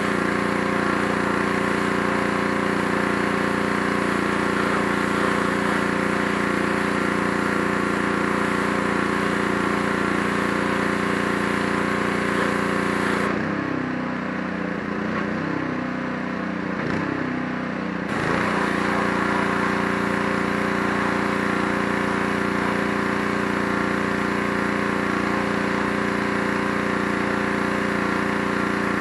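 Gas-engine pressure washer running steadily with the hiss of the spray from the wand. About 13 seconds in the spray stops for roughly five seconds and the engine note wavers and dips, then the spray starts again and the engine settles back to a steady run.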